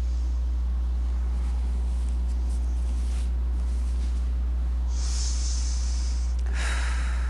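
Steady low electrical hum, with two short breathy puffs of air near the end, the second louder.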